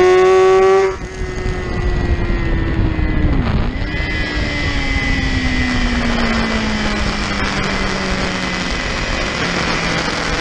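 Motorcycle engine at high revs; the throttle is shut about a second in and the engine note drops sharply. A lower engine tone then falls slowly as the bike slows, with a brief dip and recovery around three and a half seconds in, over steady wind rush.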